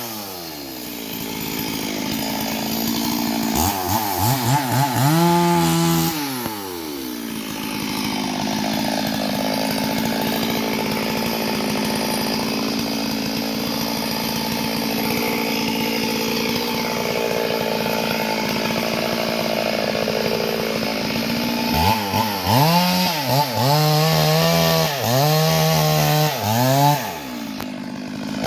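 Two-stroke petrol chainsaw running, revved up and down in a short burst a few seconds in, then running steadily, then revved repeatedly in quick rises and falls near the end.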